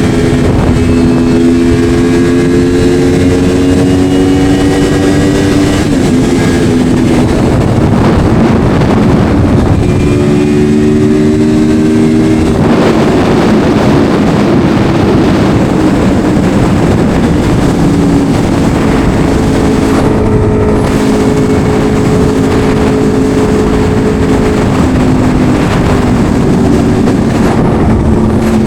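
Yamaha R1 sportbike's inline-four engine running under way, its pitch climbing slowly and then dropping at each gear change, several times over, with steady wind noise on the microphone.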